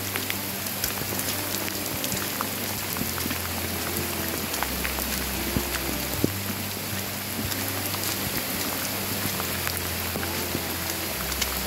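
Steady rain falling: a constant hiss with many scattered, sharp drop ticks close by.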